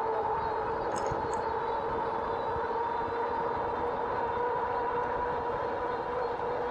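2018 RadRover electric fat-tire bike cruising at about 25 mph: a steady two-note whine that rises slightly in pitch, over wind rushing on the microphone.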